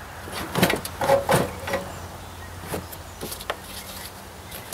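A run of sharp knocks and scrapes, bunched in the first two seconds with a few more later, as the John Deere 2032R's fuel tank is worked against the tractor's frame and a support bar during removal.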